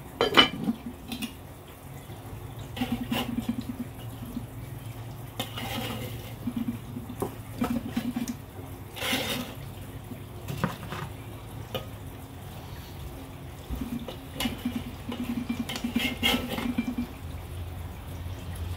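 Metal tongs and spatula clinking and scraping against a charcoal kettle grill's grate and a cast iron Dutch oven, in a string of short clanks with pauses between; the sharpest clank comes about half a second in.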